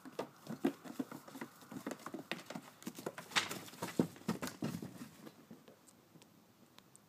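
Goats' hooves pattering and clattering on a hard floor as the goats run around: quick irregular taps and knocks, busy at first and thinning to a few faint ticks after about five seconds.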